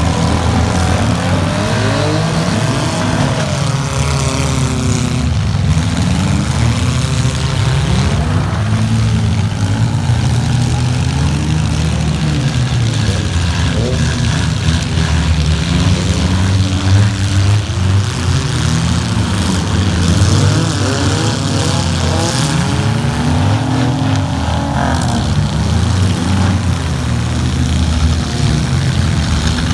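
Several demolition derby cars' engines running and revving at once, many overlapping engine notes rising and falling, loud and continuous, with a few brief knocks from the cars hitting.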